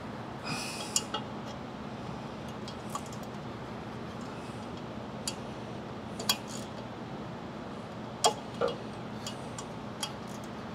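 Scattered metallic clinks and taps of screws, studs and hand tools against sheet metal as a welder's radiator is fastened in place, the loudest about a second in, near the middle and about three-quarters through. A low steady hum runs underneath.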